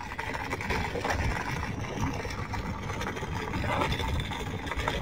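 Steady rumble and hiss of moving along a road: wind on the microphone and wheels rolling on asphalt.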